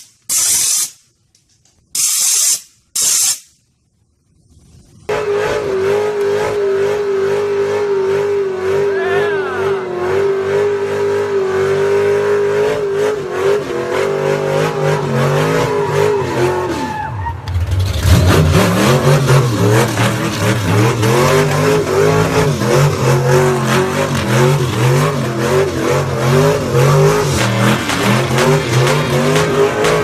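A few short, loud hissing bursts, then a supercharged muscle-car V8 held at high revs through a tire-smoking burnout. The engine note dips briefly about halfway through, then comes back louder, rising and falling as the revs are worked up and down.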